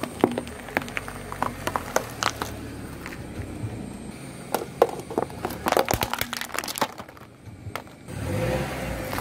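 A car tyre rolling over things on asphalt and crushing them: a run of sharp cracks and crackles over the first six seconds. From about eight seconds in, a car engine runs steadily at low revs.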